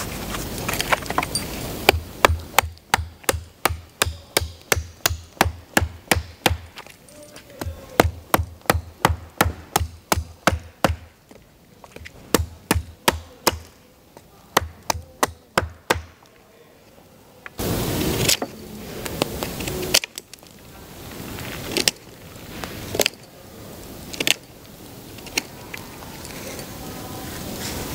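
Hatchet chopping a wooden branch against a wooden block: quick, even strokes about three a second in three runs. These are followed by a few scattered knocks and, near the end, the scraping of a knife carving the stick.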